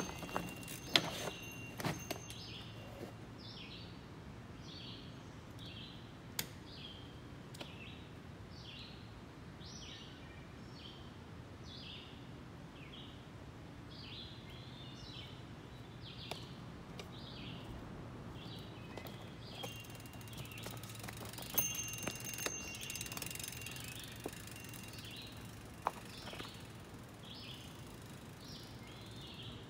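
A songbird repeats short chirping phrases throughout. A mountain bike clatters and knocks over rocks in the first two seconds and again about two-thirds of the way through.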